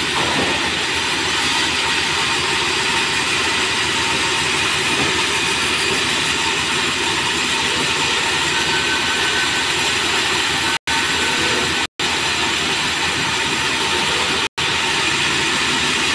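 Sawmill band saw running and cutting merbau boards: a steady, loud, hissy machine noise. The sound cuts out for a moment three times in the second half.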